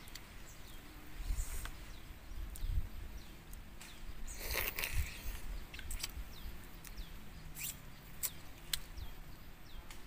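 Small birds calling with repeated short, falling chirps, over close clicks and crackles of a cooked crab being pulled apart and eaten by hand. A louder rustle comes about halfway through.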